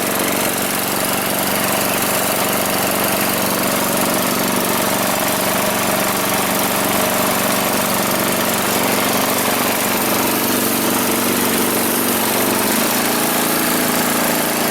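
Old lawn tractor's engine running steadily just after being started, its note shifting slightly near the end.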